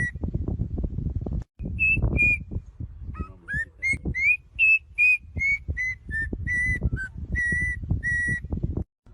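A bird giving a series of short, clear whistled notes, mostly on one pitch, with several rising slurred notes in the middle, over a low rumbling noise.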